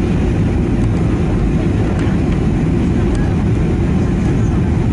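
Steady low rumble of engine and airflow noise inside the cabin of a Boeing 737-800 on final approach.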